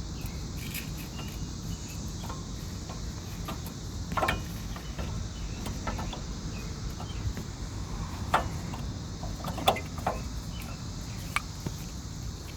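A few scattered sharp metallic clicks and clinks as brake parts and tools are handled, over a steady low rumble and a steady high hiss.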